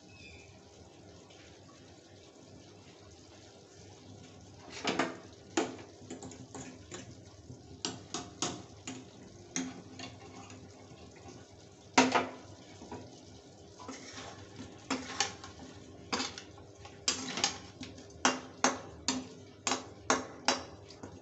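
Metal spatula knocking and scraping against a metal kadai while stirring chicken pieces: irregular sharp clanks that begin about five seconds in, with one loud knock midway and a quicker run near the end.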